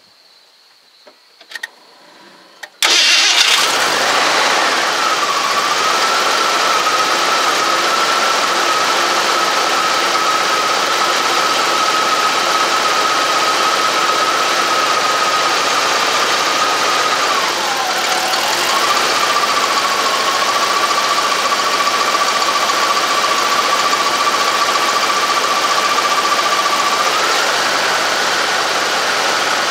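Ford small-block V8 in a 1986 F-150, fitted with a Comp Cams 260H camshaft and at operating temperature, starts up about three seconds in and then idles steadily, heard from the front of the engine without the exhaust note. A steady whine sits over the engine noise. Its pitch dips briefly about two-thirds of the way through and rises again near the end.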